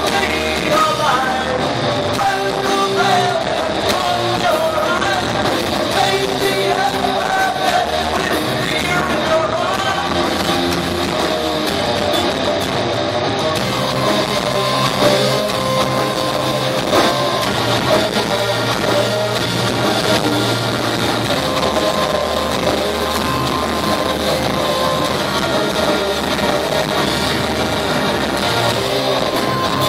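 Live rock band playing loud: distorted electric guitars, bass and drums, with a singer's voice over the first half and held guitar notes carrying on after about thirteen seconds.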